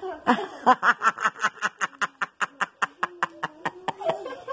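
Corn tortilla dough being patted flat between the palms by hand: a quick, even run of soft slaps, about four or five a second.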